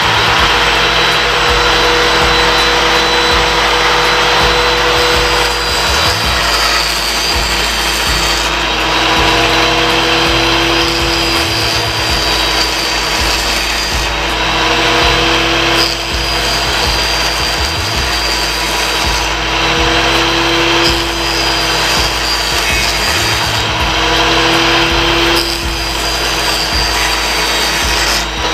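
Homemade table saw, an old Soviet-made angle grinder with a 150 mm blade mounted under the table, running steadily and cutting through OSB board. The motor's whine shifts in pitch several times as the blade takes and loses load.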